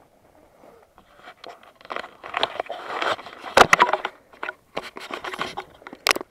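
Close rustling, crinkling and scraping with sharp clicks, typical of the camera being handled right at the microphone. It starts faint, gets busier about a second in, and has its sharpest clicks near the middle and just before the end.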